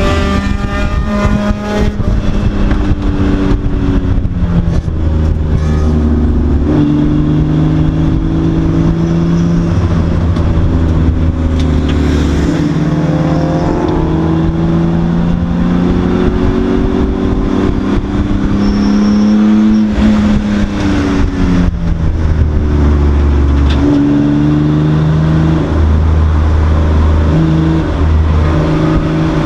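Race car's engine heard from inside the stripped cockpit, loud throughout, repeatedly climbing in pitch as it accelerates and then falling back, as it would when lifting and braking for corners.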